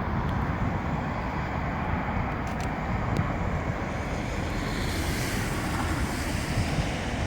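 Strong storm wind rumbling and buffeting a phone microphone, with a steady rush of rain; a hissing gust swells about five seconds in.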